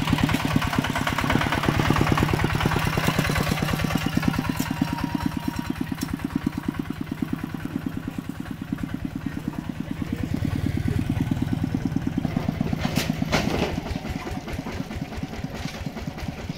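Single-cylinder diesel engine of a two-wheel walking tractor running at a steady, even chug while it pulls a loaded trailer, with an occasional sharp clatter, loudest about thirteen seconds in.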